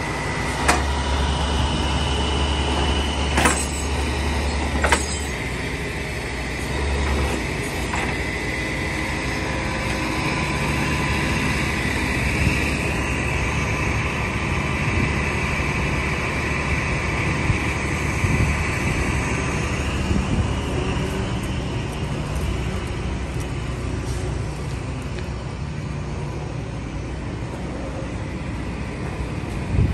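A truck engine running steadily, with a few sharp knocks in the first five seconds.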